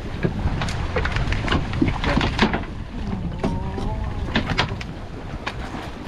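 Wind and water rushing past a sailboat under way, with irregular clicks and knocks as a fishing line is hauled in by hand and wound onto a handline spool.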